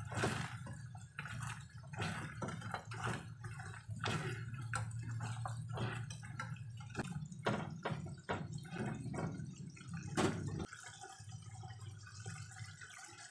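Silicone spatula stirring fried chicken pieces through a bubbling, simmering sauce in a nonstick pan: a run of wet clicks, knocks and splashes against the pan over a steady low hum. The knocks thin out near the end.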